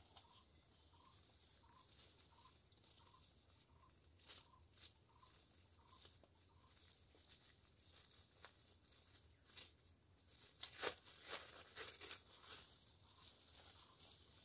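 Faint crinkling and crackling of plastic bags being handled, loudest in a cluster a little past the middle. Through the first half, a bird calls far off in a run of short, evenly spaced notes, about two or three a second.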